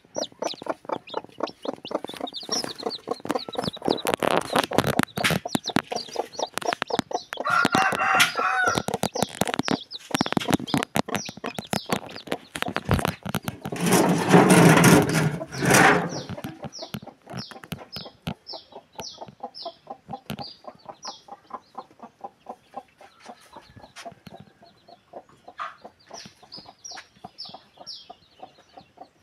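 Chickens clucking, with a rooster crowing about a quarter of the way in and a loud noisy burst near the middle. In the second half, day-old Pakhoy chicks peep over and over in short, high, falling calls.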